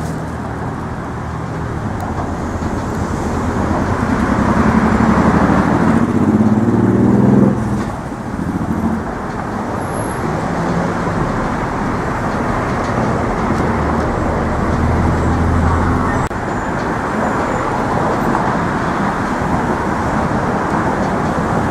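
Steady road traffic on the Brooklyn Bridge: cars and trucks passing with tyre and engine noise. One vehicle's engine grows louder and rises in pitch, then drops away sharply about seven and a half seconds in.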